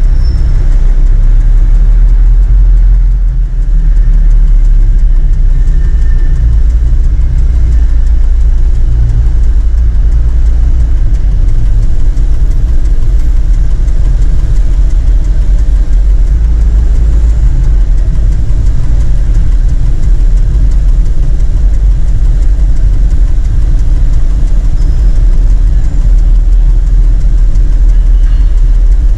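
Truck engine running at low speed, a steady low rumble heard from inside the cab as the truck creeps along.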